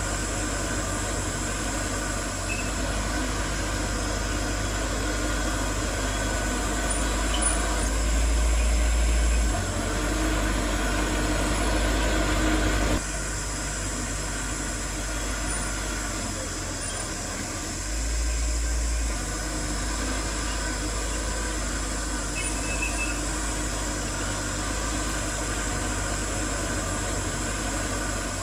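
Heavy diesel construction machinery running steadily with a low engine drone. It grows louder about eight seconds in, drops suddenly about thirteen seconds in, and swells again briefly around eighteen seconds in.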